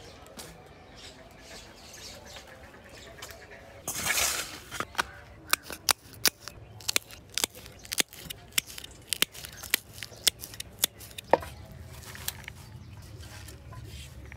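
A short rustle, then a run of sharp, irregular knocks, about two or three a second for several seconds.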